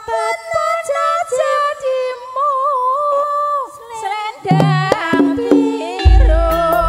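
Live campursari music: a lone melody line with sliding ornaments plays, bass notes come in about four and a half seconds in, and the full band with drums joins near the end.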